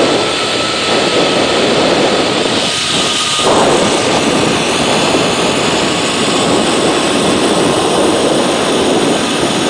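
Zip-line trolley running fast along the cable: a loud, steady whir from the pulley wheels mixed with wind rushing over the microphone.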